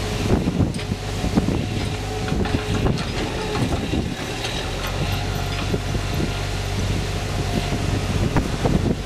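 Log truck's engine and hydraulic knuckleboom log loader running steadily as the grapple reaches into the truck and picks up a bundle of logs. A few light knocks come through the hum, and wind rumbles on the microphone.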